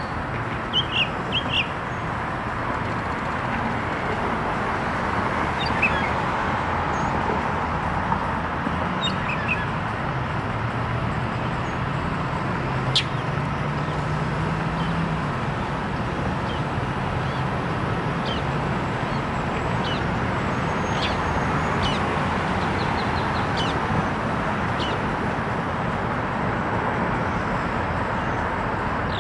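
Small birds chirping now and then over a steady background rush, with one sharp click about halfway through.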